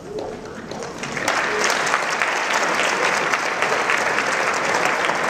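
Audience applauding, a dense clatter of many hands clapping that swells in about a second in as music fades out.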